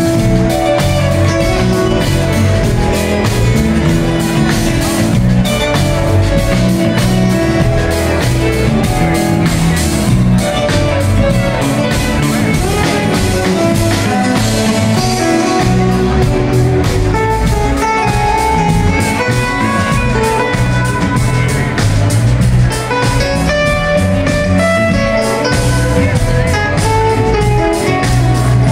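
Live band music: guitar and other plucked strings over a drum kit and bass, with a steady beat.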